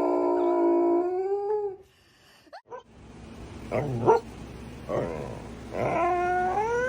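Dog howling and yipping: a long, steady held tone that bends upward and breaks off, then after a short gap a few short yips that build into a rising, wavering howl near the end.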